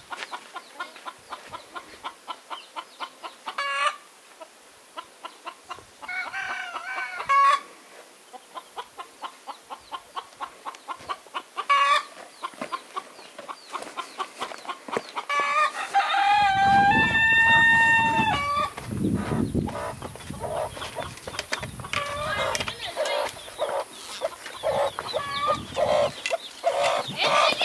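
Chickens clucking in quick repeated calls, with a few louder squawks and one long rooster crow about two-thirds of the way through. A low rumbling noise joins in over the last third.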